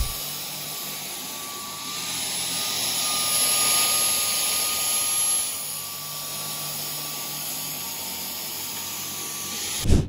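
Dyson V10 Absolute cordless stick vacuum running on its second power mode, its carpet head being pushed over a rug. It makes a steady rushing of air with a thin high whine, louder for a few seconds in the middle. There is a short thump right at the end.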